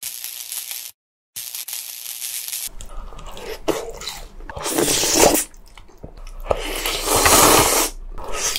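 Close-miked eating sounds: crunchy bites and chewing of kkanpunggi, Korean-Chinese crispy fried chicken in a spicy glaze. The sound breaks off briefly about a second in, and there are longer, louder stretches near the middle and toward the end.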